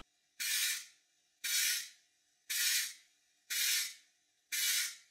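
Compressed air puffed through a copper pipe with a metal funnel fitted to its end, imitating a model steam engine's exhaust beat: five short hissing blasts about a second apart, with a faint low note under the hiss. The funnel makes the exhaust note louder.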